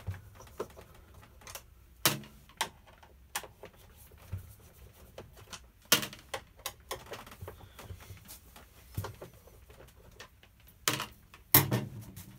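Irregular sharp clicks and taps of a hand screwdriver and plastic parts as the screws holding the sole plate of a Hoover Turbopower upright vacuum cleaner are undone, with the loudest knocks about two, six and eleven seconds in.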